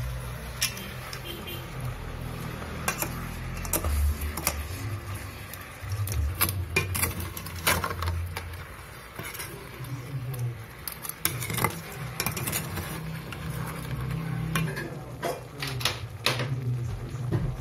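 Irregular clinks and knocks of an aluminium cooking pot being handled and shifted on a gas stove grate while jackfruit pieces are mixed in it by hand, over a low hum.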